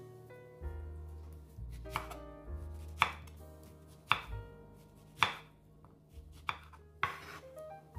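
Chef's knife slicing through a peach and striking a wooden cutting board, about six sharp cuts roughly one a second, over soft background music.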